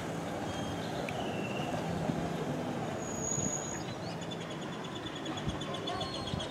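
Steady outdoor town ambience: a low rumble of distant traffic, with a few faint high bird chirps and a quick high chirring trill near the end.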